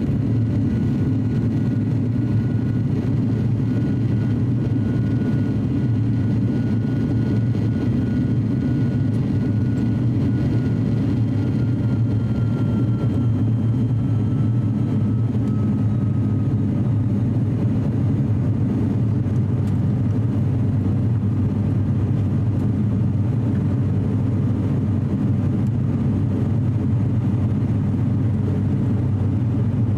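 Cabin drone of an ATR42-600's twin Pratt & Whitney PW127 turboprop engines and propellers during the climb just after takeoff: a loud, steady, low hum. A faint high tone slowly falls in pitch and fades about halfway through.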